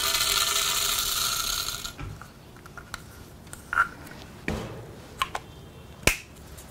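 Lead shot poured from a shot cup down the barrel of a muzzleloading shotgun: a steady, hissing rattle of pellets that stops about two seconds in. A few light clicks and one sharp tap follow as the muzzle is handled.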